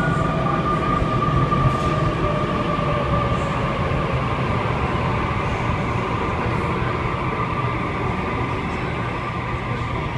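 Sydney Trains Waratah (A set) double-deck electric train pulling in along the platform: rolling rumble with a steady electric motor whine that eases off slightly toward the end.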